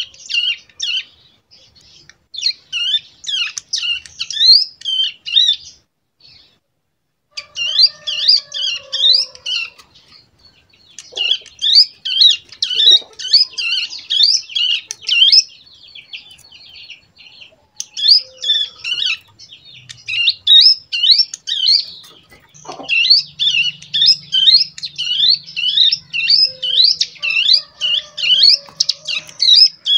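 A young caged prinia (cigun) singing in phrases of rapid, sharp, repeated chirps, a few seconds each, with short pauses between. It is a two-month-old bird still learning its song, practising the fast machine-gun-like burst ('ngebren') taught from bar-winged prinia recordings.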